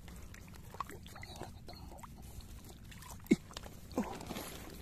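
Shallow muddy paddy water sloshing and squelching around the base of rice plants, in small irregular splashes, with one sharper splash or squelch about three seconds in.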